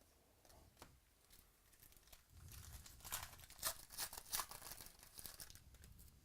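A plastic trading-card pack wrapper crinkling and tearing as it is handled, in a quick run of crackly rustles about two seconds in, loudest in the middle.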